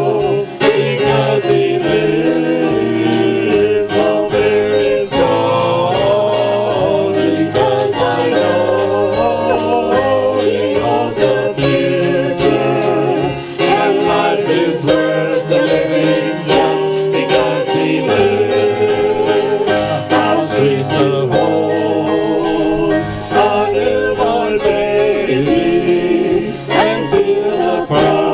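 Voices singing a worship song with instrumental accompaniment and a steady bass line underneath.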